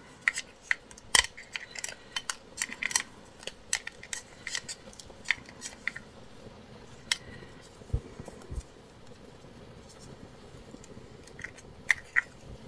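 Paper fairy die-cuts shuffled in a small clear plastic box, a run of light clicks and rustles, thickest over the first six seconds and again near the end. Two soft low thumps come about eight seconds in.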